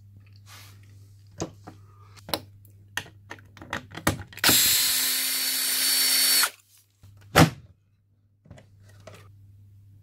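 Cordless drill driver running for about two seconds, taking a screw out of a washing machine's lower front panel. Before it come several sharp clicks and knocks of handling, and one loud knock follows it.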